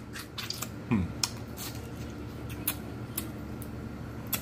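Wet mouth clicks, lip smacks and sucking of someone eating meat off a neck bone with the fingers, pulling the meat out of the bone's crevices. A short falling hum comes about a second in.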